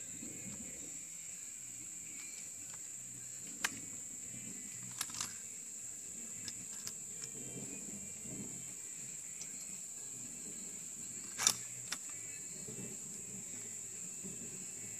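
Steady high-pitched drone of insects in the surrounding field, broken by a few short clicks, the loudest about eleven seconds in. No shot is fired.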